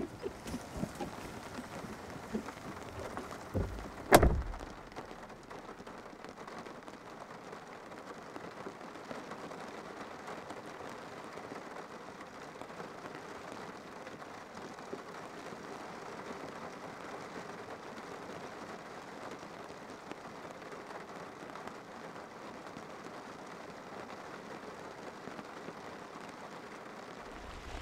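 Steady rain falling, an even hiss of drops, with a single loud thump about four seconds in.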